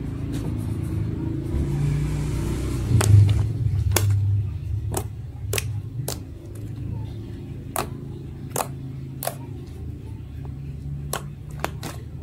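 Fluffy slime being pressed and poked by hand, giving sharp pops and clicks about once a second as air pockets in the slime burst. Under it runs a steady low rumble that swells about three seconds in.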